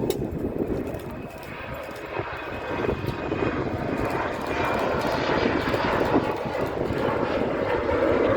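Jet airliner engines: a rushing noise that grows louder over the first few seconds and then holds, with a faint whine above it.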